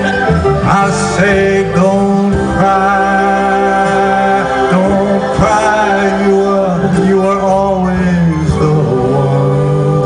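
Live band playing a slow ballad, with a singing voice holding long notes that bend and glide over steady organ and bass accompaniment.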